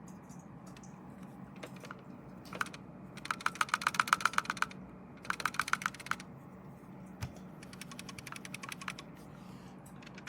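Quick runs of clicks on a computer's keys or buttons, about ten a second, in three bursts. The loudest burst comes a few seconds in, and the last is fainter.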